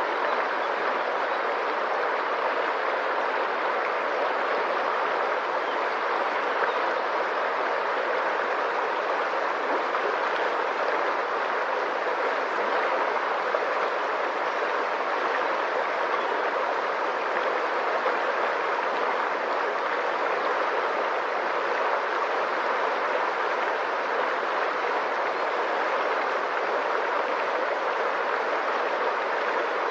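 Water of a stream flowing and rippling in a steady, even rush.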